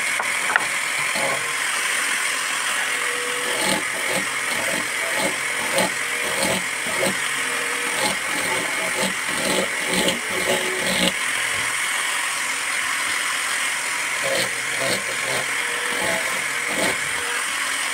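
A hand chisel making short paring and scraping cuts into wood, in clusters of quick strokes, over a loud steady machine-like background noise.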